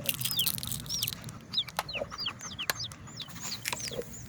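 Birds chirping: many short, high chirps, each falling in pitch, several a second, with scattered sharp clicks.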